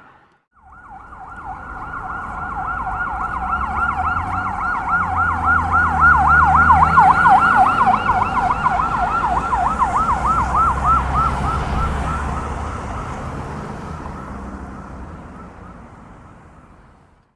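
Police car siren on a fast yelp, sweeping rapidly up and down, with the low rumble of the vehicle underneath. It swells to its loudest midway and fades away near the end as the car passes by.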